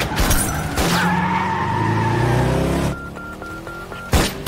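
Land Rover LR3 SUV engine revving with a tyre squeal as it speeds off. About three seconds in the engine sound drops away and a mobile phone beeps five times in quick succession. A sudden loud bang follows near the end.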